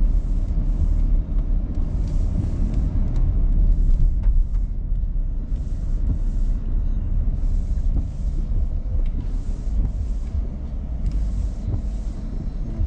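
Steady low rumble inside a car driving slowly on a wet road, with the windshield wipers swishing across the glass about every half second.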